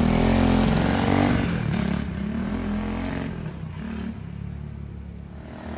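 Lifan 125 single-cylinder four-stroke engine in a Honda CT70 mini bike pulling away on a test ride, its pitch climbing and dropping a few times as it accelerates, then fading as the bike rides off. The owner finds it short of power at higher revs while he tunes the carburetor jetting.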